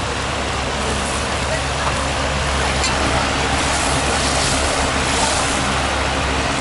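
Chicken pieces sizzling and frying in sauce in a large kazan while a metal spatula stirs them, over a steady low rumble.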